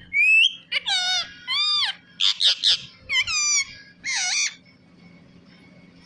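Rose-ringed parakeet whistling and calling: a run of about six short, shrill pitched calls, the first a rising whistle, over the first four and a half seconds.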